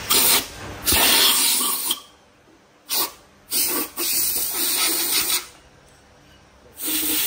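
Compressed-air blow gun blasting in about five hissing bursts of differing length, the longest nearly two seconds, each starting and stopping sharply. It is blowing out a stripped six-cylinder diesel engine block.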